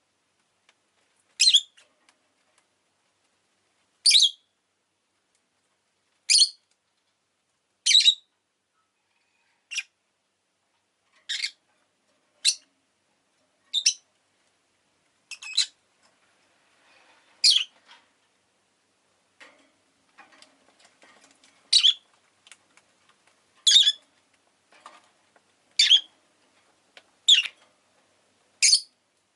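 Rosy-faced lovebird giving short, sharp, high-pitched chirps one at a time, about fifteen of them, spaced every one and a half to two seconds.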